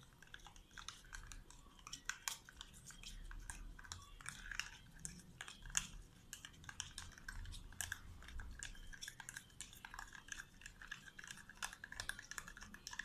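A spoon stirring a wet slime mixture in a small container, making irregular soft clicks and taps against the pot.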